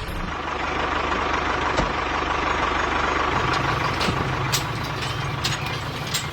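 A homemade bulldozer's motor running steadily with a fast, even pulse, and a few sharp clicks and knocks over it.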